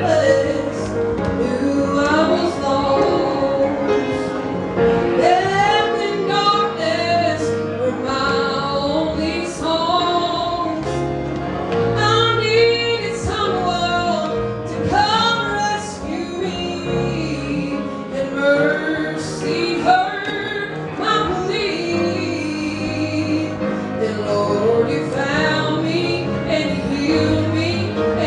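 A song with a woman singing the lead melody with vibrato over instrumental accompaniment, its bass notes changing every couple of seconds.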